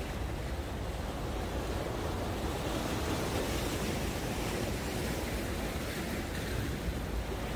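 Rough sea surf washing and breaking over concrete tetrapods at the foot of a breakwater: a steady rushing noise that swells a little in the middle.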